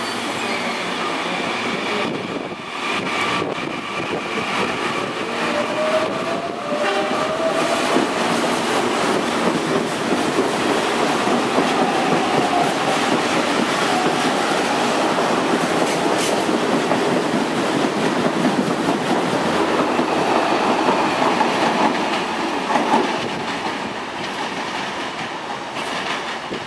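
Electric multiple-unit commuter train pulling out of the platform and running past, a steady rolling rumble with wheels clacking over the rail joints that builds up over the first twenty seconds, with a faint rising whine about six seconds in.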